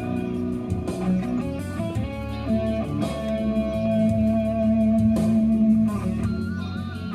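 Music with guitar: sustained electric guitar notes and chords over a bass line.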